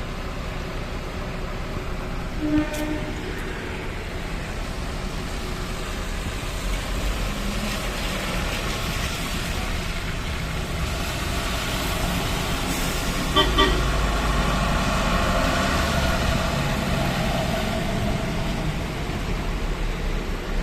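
Road traffic passing on a highway, its engine and tyre noise swelling as a vehicle goes by. A vehicle horn gives short toots about two and a half seconds in and again around thirteen seconds in.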